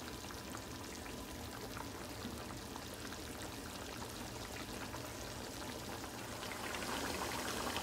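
Pork and chicken adobo sauce boiling in an uncovered pot, a steady bubbling with many small pops as the unstirred liquid reduces. It grows a little louder near the end.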